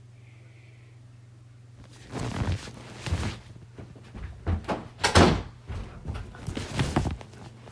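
A run of irregular clattering knocks and thumps, starting about two seconds in, the loudest about five seconds in, over a steady low hum.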